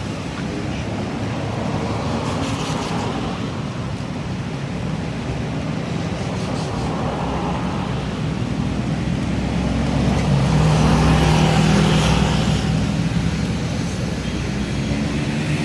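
City street traffic: cars running and passing in a steady wash of road noise, with one vehicle's engine growing louder as it passes about ten to thirteen seconds in.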